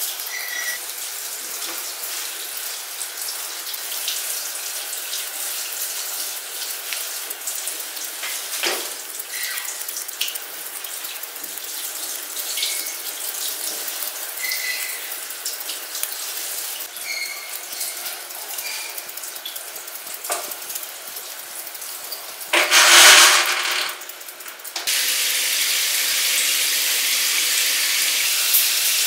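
Grooming scissors snipping through a poodle's leg fur over a steady hiss, with scattered small clicks and brief high metallic rings from the blades. About three-quarters of the way through there is a short loud burst of noise, and soon after a louder steady hiss sets in.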